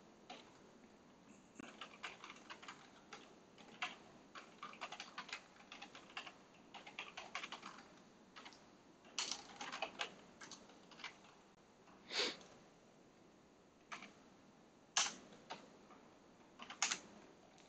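Typing on a computer keyboard: irregular runs of faint key clicks, with a few louder single key strokes spaced out over the second half.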